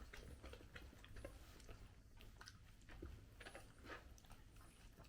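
Miniature dachshund chewing food, with faint irregular crunching clicks.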